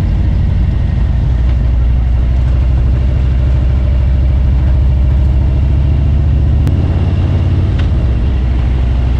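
Harley-Davidson Road King's V-twin engine running under way, a steady low engine note that shifts a little about one and a half seconds in and again near seven seconds.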